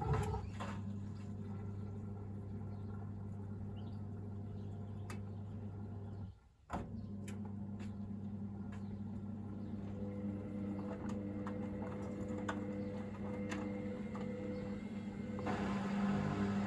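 Washing machine drain pump starting up with a steady low hum, pumping out the wash water. It stops for a moment about six seconds in and starts again, with light clicks over it, and near the end grows louder and hissier as the sump begins to empty.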